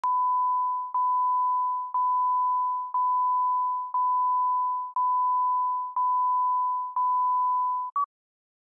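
Slate countdown tone: a steady pure test tone, broken by a short dip once a second. It ends with a brief, slightly higher pip near the end.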